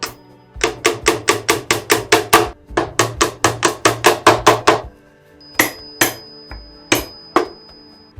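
A hammer striking repeatedly during woodworking: two quick runs of sharp blows at about five a second with a short pause between, then four slower single strikes. Background music plays underneath.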